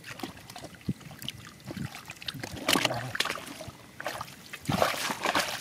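Hands splashing and sloshing through shallow muddy water while groping for and grabbing a fish, with two louder bouts of splashing, about three seconds in and again near the end.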